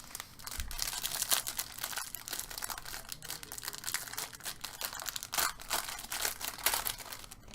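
Crinkling and rustling of plastic packaging and trading cards being handled, a busy run of small crackles and ticks.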